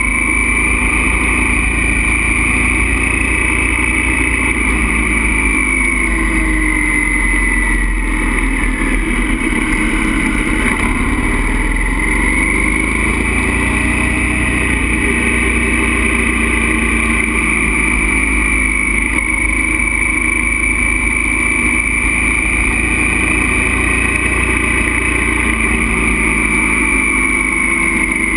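Motorcycle running at road speed, heard from the rider's own bike, with a steady low rush of wind. The engine note drops about a third of the way in and climbs again soon after, as the bike slows for a curve and accelerates out of it.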